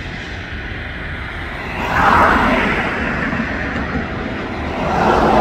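CSX intermodal freight train rolling past, a steady rumble of wheels on rail with louder swells about two seconds in and near the end.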